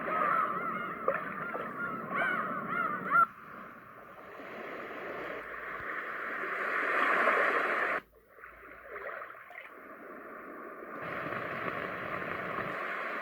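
Roffie white noise machine playing its built-in sleep sounds through its small speaker, switching between them. It starts with bird calls over running water, followed by a water sound. The sound breaks off about eight seconds in, and a steadier hiss takes over near the end.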